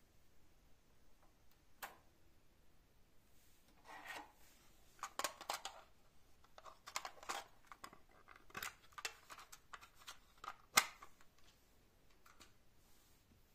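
Irregular handling noises: scattered sharp clicks mixed with short rustling, rattling bursts, busiest in the middle and ending with one sharp loud click about eleven seconds in.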